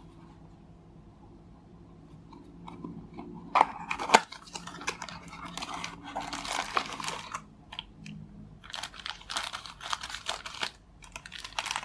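Small cardboard box handled and opened, with two sharp snaps about three and a half seconds in, then a black plastic bag crinkling in bouts as it is pulled out and cut open with scissors.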